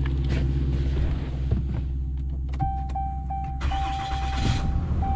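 Ram 2500 pickup engine running steadily from inside the cab, with a dashboard warning chime beginning about halfway through: three short beeps, then longer held tones. There is a brief rush of noise in the middle.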